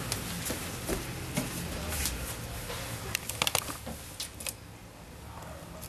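Rustling and handling of the layered fabric of a wedding gown being worked on, with scattered light clicks and a quick cluster of sharper clicks about three and a half seconds in.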